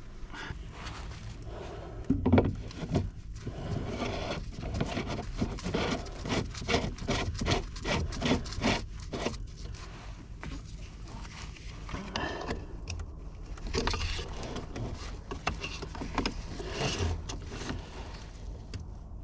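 Knocks, scrapes and rubbing from handling plastic water-filter canisters and screwing them back onto their housings, with a sharp knock about two seconds in.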